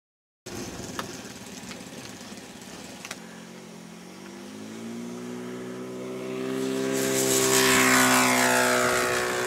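Cessna's propeller engine droning. Its pitch rises about three seconds in, and it grows steadily louder to a peak near the end before easing off slightly.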